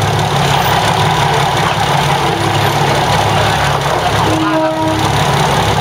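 Diesel railcar engine running at low revs with a steady low drone, heard from inside the train as it creeps along the track. A brief higher tone sounds about four and a half seconds in.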